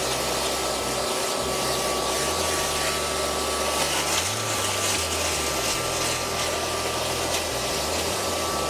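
Shop vac running steadily with a faint whine, its hose in the lap's wet pan sucking out gritty water while the pan is cleaned between grits.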